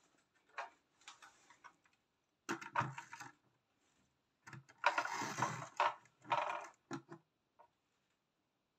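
Handling noise: clicks and scraping as model buses and their plastic display tray are picked up and moved about on a table, in several short irregular bursts, loudest in the middle.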